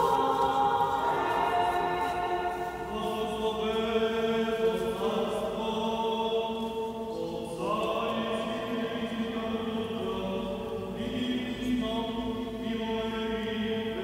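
Church choir singing chant in long held chords that move to new notes every second or few.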